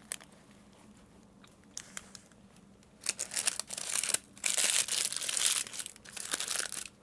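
Paper wrapping crinkling and rustling around hand-held pita wraps. It is faint with a few small ticks at first, then turns into loud, irregular crinkling from about three seconds in.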